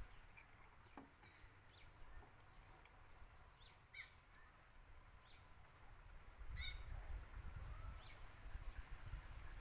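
Near silence with faint bird calls: two short calls, about four seconds in and again near seven seconds, with faint high twittering between them.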